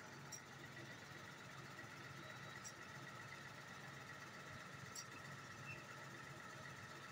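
Truck-mounted borehole drilling rig's engine running steadily at a low hum, with a few faint clicks.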